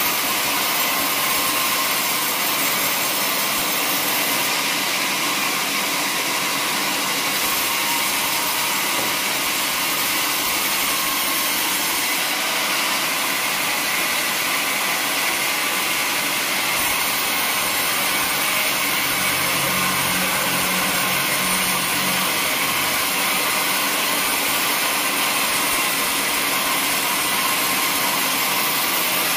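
Band sawmill running, its blade ripping lengthwise through a teak log: a steady, high-pitched hissing whine. A deeper hum joins for a few seconds past the middle.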